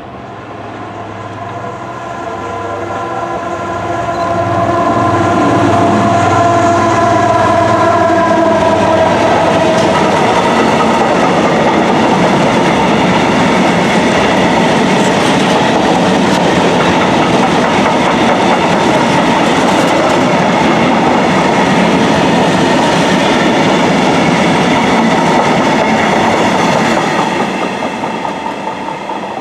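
Diesel-hauled train passing: the locomotive's engine note rises in loudness and drops in pitch as it goes by. A long, steady rumble of wagons running over the rails follows, fading near the end.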